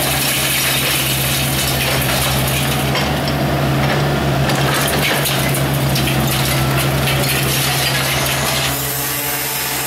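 Hydraulic demolition shear on an excavator crushing reinforced concrete: crunching concrete and clinking rebar and falling rubble, over the excavator's steady engine hum.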